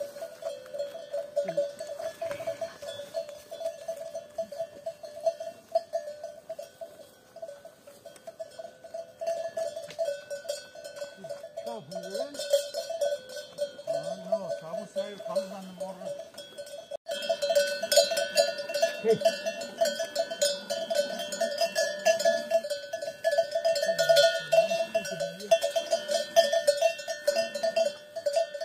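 Bell on a cow's neck clanking rapidly and without pause, ringing at one steady pitch, louder in the second half.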